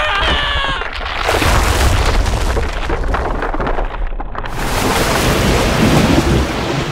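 A brief wavering, high-pitched cry at the start, then a loud rushing surge of flood water over a deep booming rumble. The hiss drops away for a moment about four seconds in, then swells again.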